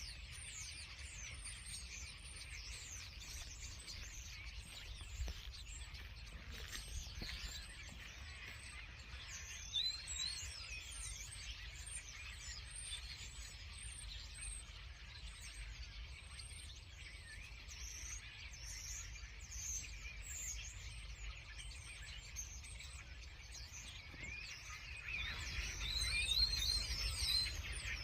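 Many small birds chirping and twittering at once, a dense chorus of short overlapping calls that grows busier and louder in the last few seconds. A steady low rumble runs beneath, also louder near the end.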